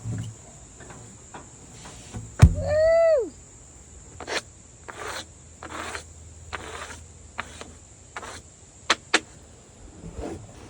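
A steady high-pitched insect drone runs throughout. About two and a half seconds in there is a sharp knock, followed at once by a short pitched sound that falls away. After that come a run of short scrapes and knocks, with two sharp clicks near the end.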